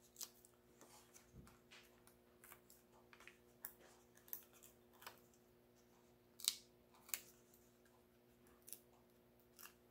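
Faint papery ticks and crinkles of release-paper backings being peeled off foam adhesive dimensionals on a card panel, as scattered short clicks with two sharper ones about six and a half and seven seconds in, over a faint room hum.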